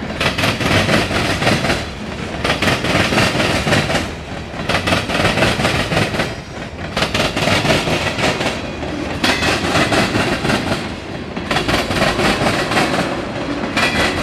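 Freight train cars rolling past: wheels rumbling and clattering over the rails, the sound dipping and swelling about every two seconds as each car goes by.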